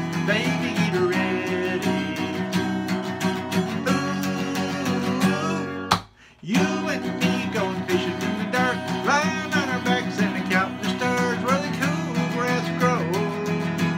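Urban acoustic guitar strummed in a steady country rhythm. About six seconds in, the sound cuts out for about half a second after a click, then the strumming carries on.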